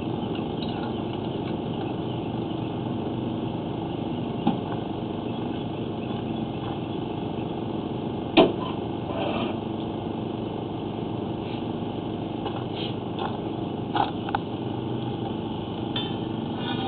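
A small engine running steadily, with a few sharp knocks over it, the loudest about eight seconds in.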